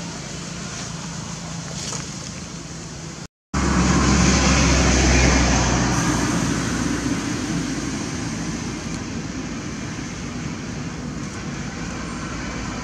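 Steady outdoor background noise, a hiss with a distant rumble like traffic or wind. It breaks off abruptly about three seconds in. It comes back louder, with a low rumble that fades away over the next few seconds.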